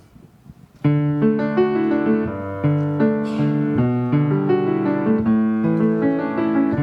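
Piano playing the slow opening chords of a song's introduction, coming in suddenly less than a second in after a short quiet.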